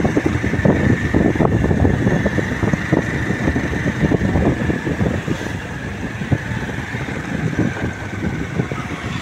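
Motor vehicle on the road: a dense low rumble with irregular buffeting and a faint steady high tone above it.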